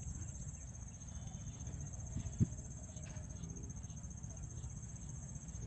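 Insects chirring in a steady high-pitched drone, over a low background rumble, with one sharp knock about two and a half seconds in.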